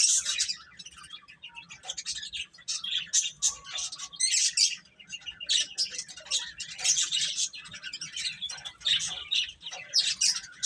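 Several baby chicks peeping continuously, many short high-pitched chirps overlapping one another.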